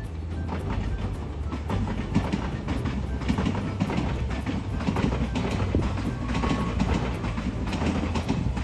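Kintetsu Minami-Osaka Line train passing over the level crossing, its wheels running and clicking over the rail joints in quick, uneven succession.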